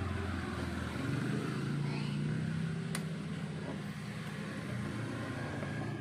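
Low, steady drone of a motor vehicle engine running, with one sharp click about three seconds in.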